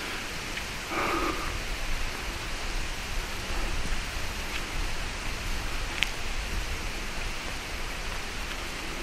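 Steady rushing water noise, with a brief tone about a second in and a single sharp tick about six seconds in.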